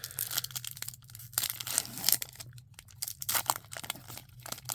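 Trading cards and their packaging being handled, with irregular crinkling and crackling rustles.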